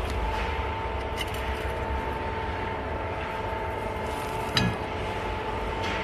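A steady background hum, with a few faint clinks of metal kerosene-burner parts being fitted together by hand, one about a second in and another about four and a half seconds in.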